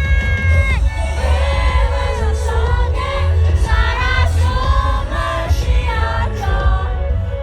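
Live concert music picked up by a phone in the audience: a heavy bass beat under a sung melody, with a long held note that ends about a second in.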